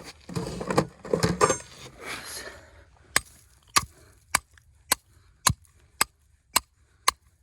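A hammer striking a rebar stake, driving it into the ground to anchor a dog-proof raccoon trap. About two seconds of rustling come first, then about three seconds in come sharp, evenly spaced blows, about two a second.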